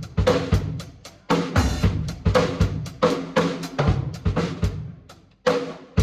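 Drum kit played in a steady groove of bass drum, snare and cymbal hits, about two to three strokes a second, with a brief pause about five seconds in before it picks up again.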